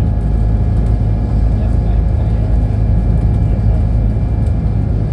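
Ferry engines running steadily under way, a loud, even low drone with a few steady tones through it, heard from inside the passenger cabin.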